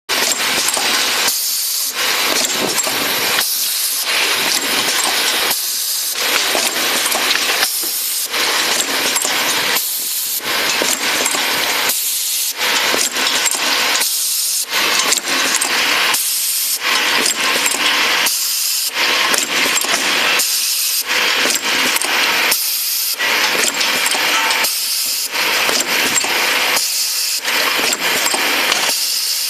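Automatic rotary dropper-bottle filling and capping machine running: a steady hiss with fine clicking, dipping briefly in a regular cycle about every two seconds.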